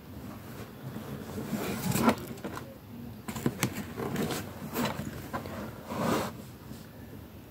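Cardboard product box and its plastic window packaging being handled and turned over: a series of irregular scrapes and rustles with a few sharp knocks, loudest about two seconds in.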